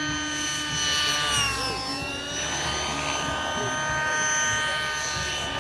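Small model aircraft engine running with a high, steady whine; its pitch dips and comes back up about two seconds in.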